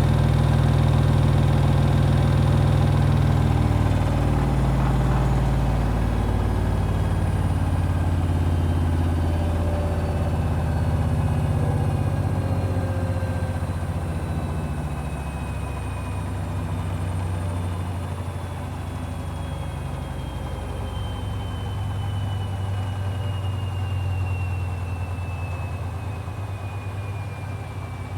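Hoover HW411AMC washing machine slowing down at the end of its 1400 rpm final spin. The motor whine falls steadily in pitch and the drum's rumble eases as it winds down.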